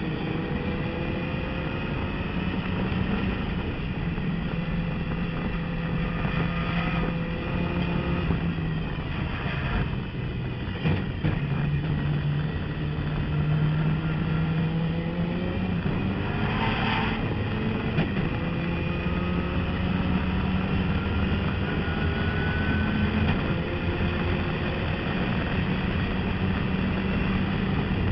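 Turbocharged race car engine heard from inside the cockpit under hard acceleration, its pitch rising as it pulls through each gear and dropping back at every gear change. There are a few brief noisy bursts along the way, the loudest about 17 seconds in.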